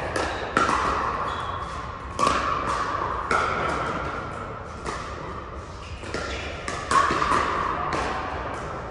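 Pickleball paddles hitting a plastic pickleball back and forth in a rally: about six sharp pops, each ringing briefly and echoing in the big hall, with fainter hits from neighbouring courts.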